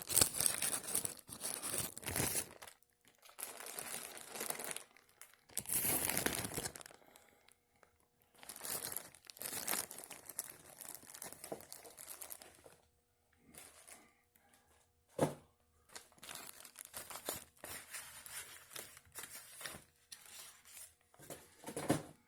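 Paper and plastic packing crinkling as the items are handled, in several spells of a second or two, then lighter scattered rustles and taps in the second half.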